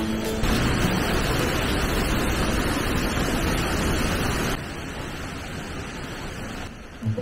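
Water spilling over the edge of a stone wall, a steady rushing splash. About four and a half seconds in it gives way to a quieter, steady rush.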